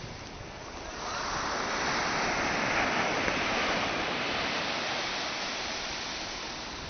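Ocean surf on a beach: a wave breaking and washing up the sand, swelling about a second in and slowly fading toward the end.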